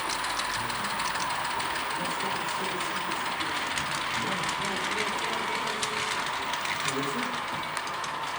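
Model railway trains running on a museum layout: a steady hum with light clicking and rattling from the small trains, under a murmur of visitors' voices.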